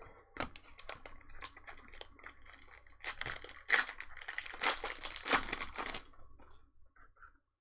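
Trading card pack wrapper being torn open and crinkled: a dense run of crackling and tearing, loudest in the second half, that stops about a second before the end.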